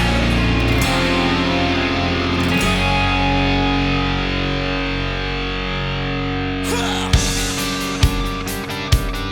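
Background rock music: held electric guitar chords with distortion, and drums coming in about seven seconds in with a kick beat roughly once a second under fast hi-hat ticks.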